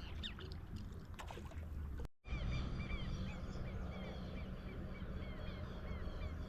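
A few short splashes and drips of kayak paddles in water over a low rumble, then an abrupt cut about two seconds in. After the cut, a bird gives a quick run of short, hooked calls, two or three a second.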